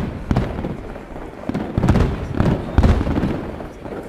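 Aerial firework shells bursting in a rapid series of bangs, each followed by a rumbling echo.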